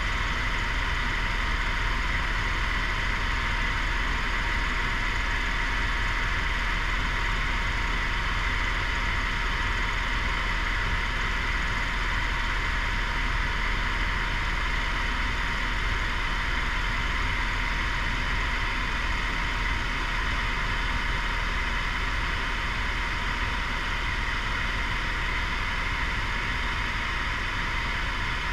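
Helicopter in steady flight, heard from inside the cabin: an even engine and rotor drone with a constant high whine.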